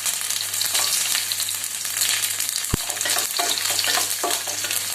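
Sliced garlic, peppercorns and dried red chillies sizzling and crackling in hot sesame oil, stirred with a spatula. There is a single sharp click on the pan about halfway through.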